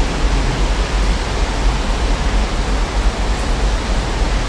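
A pair of Class 56 diesel locomotives, Ruston-Paxman V16 engines, pulling away, their low rumble fading under a loud, steady rushing hiss of rain.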